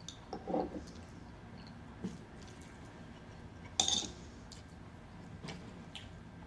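Eating sounds at a meal: soft chewing and squishing, a few light clicks, and one sharp utensil clink on a dish about four seconds in, the loudest sound.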